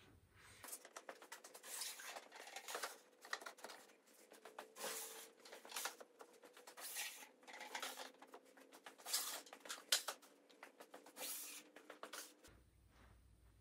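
Small painted canvases set down and slid by hand across a wooden worktable: a quick irregular run of taps, knocks and scrapes, with a faint steady hum underneath.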